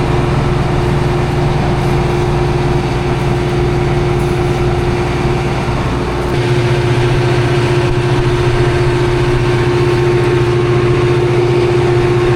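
Combine harvester engine running steadily with a constant whine over its drone; the low note of the engine changes about halfway through.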